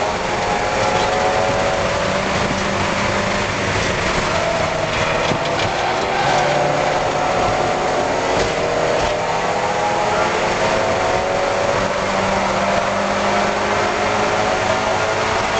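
Spec Miata race car's four-cylinder engine running hard on track, heard from inside the car. The engine note rises and falls as the revs change, over a steady rush of noise.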